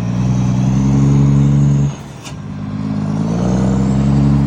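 Scania truck diesel engine revved through its exhaust in two long, held blips, dropping back between them. A short sharp click comes just after the first blip.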